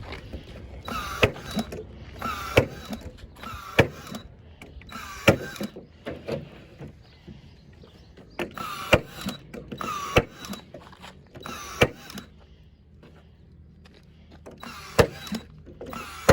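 A power drill driving screws into wood in a string of short bursts, about nine in all, each whirring burst ending in a sharp click, with a pause of a couple of seconds partway through.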